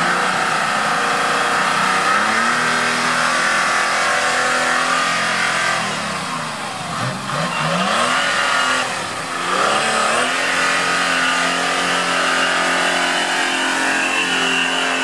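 Off-road buggy's engine revving hard and held at high revs as it claws through a deep mud bog. The revs drop and climb back up twice around the middle.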